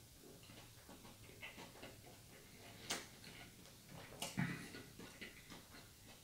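Quiet mouth sounds of a person sipping red wine: faint lip smacks and wet clicks, two sharper clicks near the middle and a low swallow just after.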